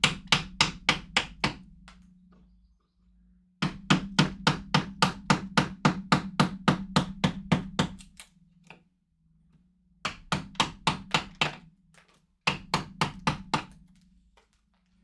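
Mallet tapping a carving chisel or gouge into wood, quick even blows about four to five a second in several runs of a few seconds each, with a low steady hum under the blows.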